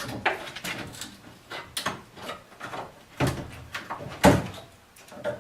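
Old wooden cabinet boards knocking, scraping and creaking as a piece is pried off by hand, with two louder knocks about three and four seconds in.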